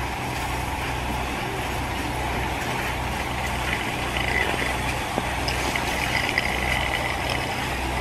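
Fire engine running steadily at the scene with an even low hum, its pump supplying the hose lines, under a steady broad hiss.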